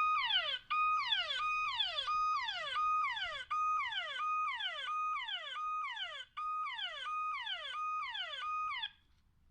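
Smartphone speaker sounding the Don't Touch My Phone anti-theft alarm, set off in pocket mode. Each cycle is a tone that holds briefly and then slides steeply down, repeating about one and a half times a second, and it cuts off suddenly about nine seconds in.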